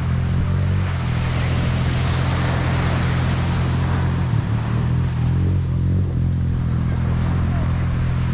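Sea surf breaking and washing up a sandy beach in a steady rush, under a heavy low rumble.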